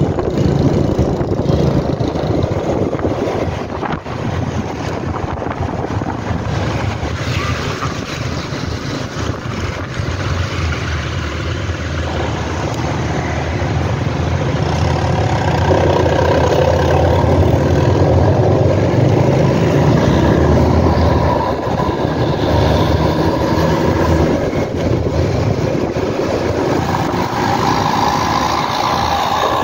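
Motor scooter engine and road noise while riding in town traffic, steady with small rises and falls in speed. From about halfway through, a large bus's diesel engine running close alongside adds a heavier, louder layer.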